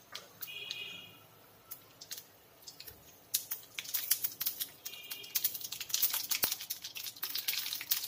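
Mustard seeds spluttering in hot sesame oil in an iron kadai. Scattered pops at first, turning into a dense crackle about three seconds in.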